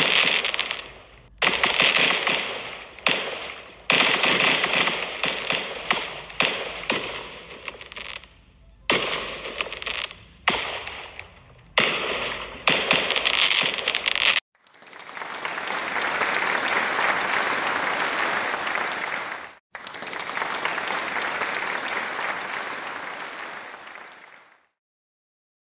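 Aerial fireworks going off: a rapid run of sharp bangs and crackling bursts, each trailing off, for about fourteen seconds. Then the bangs cut off abruptly and a steady rushing noise swells and fades twice before silence near the end.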